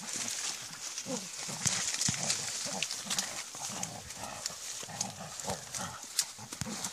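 Hunting dogs growling in repeated rough bursts as they worry a freshly taken raccoon dog, with dry reed stalks rustling and cracking around them.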